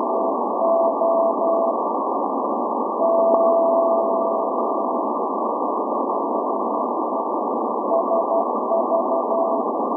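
Morse code channel marker from SVO, the Greek maritime coast station, received on 8424 kHz shortwave in CW mode. A keyed tone of about 700 Hz sends dots and dashes through steady, narrow-filtered radio static. About three seconds in, one unbroken tone lasts two seconds, and the keying grows weaker for a while before it comes back strong near the end.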